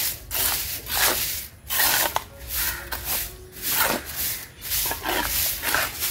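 Stiff stick broom scraping across a fresh cement surface in repeated short strokes, about one and a half a second.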